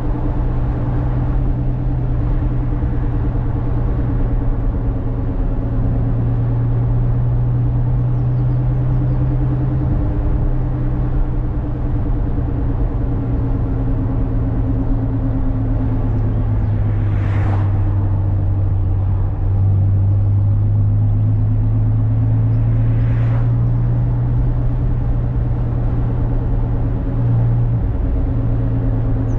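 Ferrari California's 4.3-litre V8 running steadily at cruise, with a low, even drone that dips slightly in pitch twice, over tyre and road noise. Two brief whooshes come about six seconds apart in the latter half.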